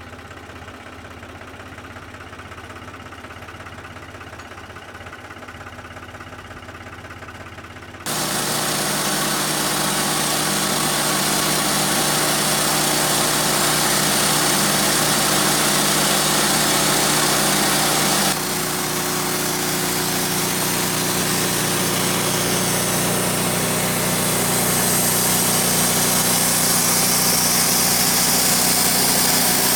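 An engine running steadily. About eight seconds in it turns suddenly louder with a strong high hiss added, and a little past eighteen seconds it shifts abruptly again.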